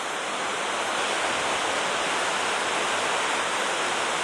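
Steady rushing of river water, an even hiss with no breaks.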